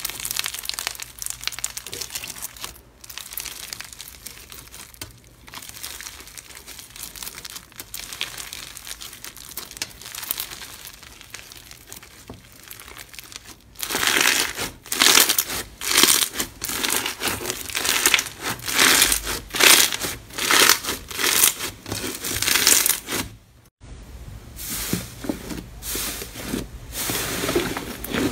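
Hands squeezing and kneading crunchy granular slime full of rice-grain-like beads, giving a dense crackling and crinkling. About halfway in the crackling gets louder and comes in quick squeezes, about two a second. Near the end it changes to a softer, lower squishing as a puffy inflated slime is pressed.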